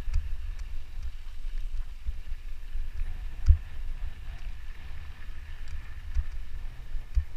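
Low rumble and wind buffeting on a bike-mounted action camera's microphone as a mountain bike rolls over a dirt trail. A few knocks come from bumps, the sharpest about three and a half seconds in.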